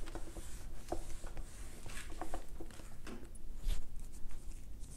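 Whiteboard eraser rubbing across a whiteboard in short, irregular scrubbing strokes, with small scrapes and clicks.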